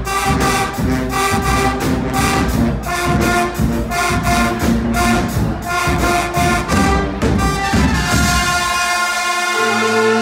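Guggenmusik brass band playing live: sousaphones, trumpets and trombones over a steady drum beat. About eight seconds in, the drums stop and the brass holds a long chord.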